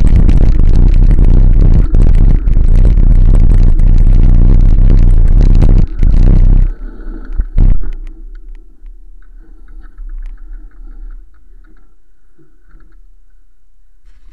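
Wind buffeting the microphone of a bicycle-mounted camera while riding, loud and heavy in the low end. It cuts off about seven seconds in as the bicycle slows to a stop, with a single knock just after, then only faint low sounds.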